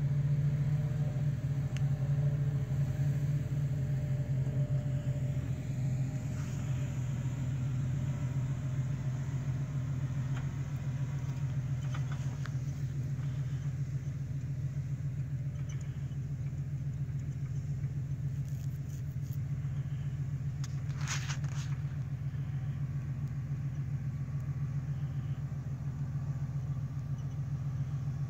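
Jeep engine running steadily while driving off-road, a continuous low drone, with a couple of brief knocks or rattles partway through.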